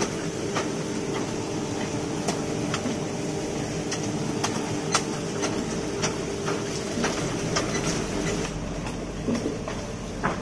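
Daikon radish washing machine running: its rotating roller brushes make a steady mechanical hum, with irregular knocks and clicks as radishes are fed in and tumble through.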